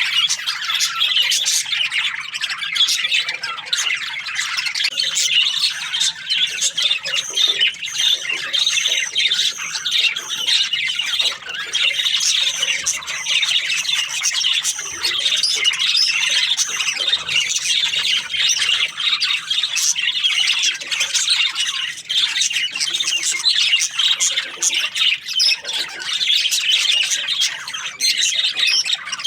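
A colony of budgerigars chattering, with many overlapping chirps and squawks in a dense, continuous stream.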